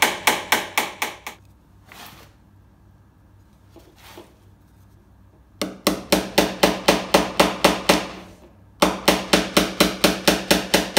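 Light hammer tapping panel pins into a car body panel and its ash wood frame, in quick even blows at about five a second. A first run of blows stops about a second in, there are two faint knocks during a pause of about four seconds, and then the tapping starts again, with one short break near the end.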